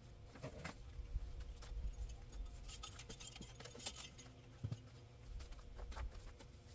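Garden soil being worked over to mix in granular fertilizer: scattered scratches, clicks and gritty scraping, busiest about three to four seconds in.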